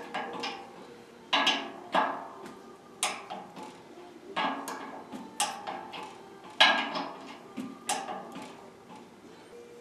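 Ratchet-head torque wrench clicking and its socket clinking against the steel screws of a turbine bearing retainer as they are tightened to the final 80 pound-inches. About eight sharp metallic clicks come irregularly, roughly one a second, each ringing briefly, with lighter ratchet ticks between them.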